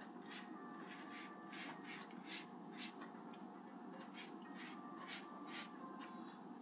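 Silicone pastry brush swishing over rolled-out dough as melted butter is brushed on: faint, irregular strokes, about one or two a second.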